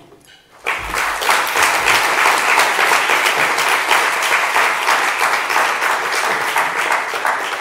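Audience applauding: many people clapping at once, starting sharply under a second in and fading at the close.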